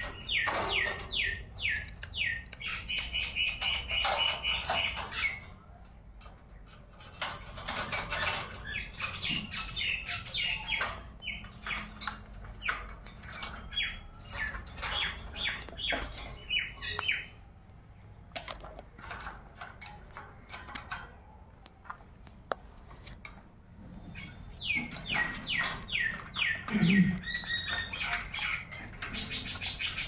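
Rose-ringed parakeets squawking in bouts of rapid, shrill calls, about four a second, with quieter gaps between the bouts. A brief wing flutter near the start.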